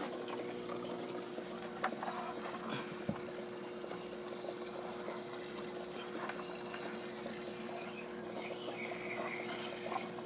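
Small submersible auto top-off pump humming steadily in its nearly empty reservoir bucket, with water running through it, and a few faint handling clicks.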